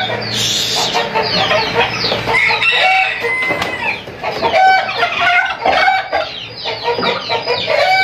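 A flock of chickens clucking and calling without a break, many calls overlapping.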